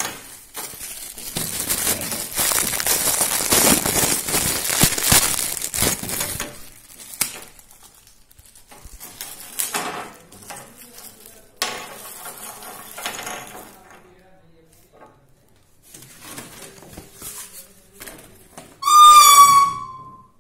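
A plastic bag rustling as it is opened, then small black plastic levelling feet clicking and knocking on a glass tabletop as they are handled. Near the end, a loud high tone lasting over a second, falling slightly in pitch.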